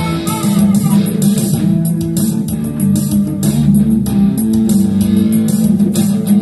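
Instrumental section of a song: electric guitar playing over a backing track with a steady drum beat, with harmonica lines in the first second.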